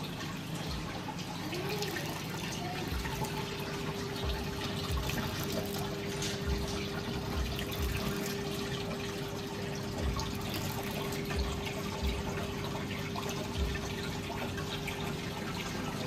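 Water trickling and splashing in a small homemade motor-pumped cement fountain, with a steady hum setting in about three seconds in.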